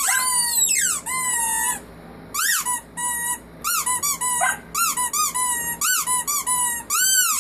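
Squeaky dog toy squeezed by hand over and over: a few long, high squeals that rise and fall in pitch, then a run of quick short squeaks from about halfway through.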